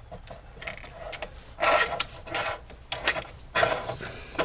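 Yellow 12-gauge plastic-sheathed electrical cable being pulled through a connector into a metal breaker panel, its sheath rubbing and scraping in several short strokes.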